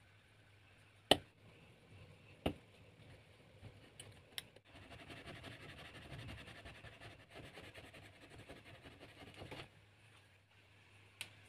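Hobby knife scoring a small piece of white PVC plastic on a cutting mat: two sharp clicks in the first few seconds, then about five seconds of faint, scratchy scraping as the blade is drawn along the plastic, and one more click near the end.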